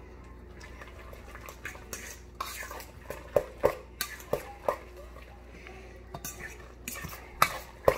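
A metal fork clinking and scraping against a stainless steel mixing bowl as avocado is mashed and stirred into guacamole. Irregular sharp taps start about a second in, with the loudest ones in the middle and again near the end.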